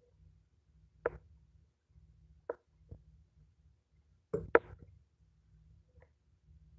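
Several short, faint knocks or clicks at irregular intervals, the loudest a quick pair about two-thirds of the way through, over a faint low hum.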